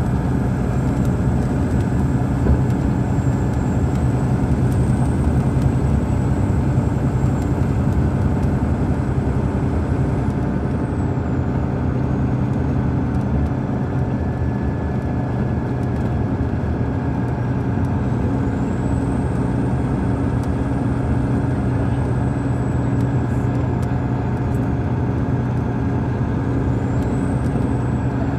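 Detroit Diesel Series 60 diesel engine of a 2002 MCI D4000 coach running at a steady speed, heard from inside the bus, with a faint high whine drifting slowly up and down.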